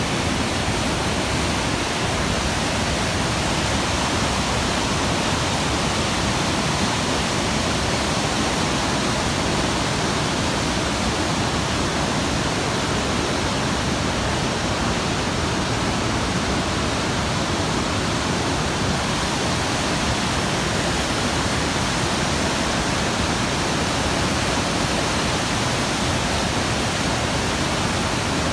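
A steady, even rushing noise that does not change, with no distinct events.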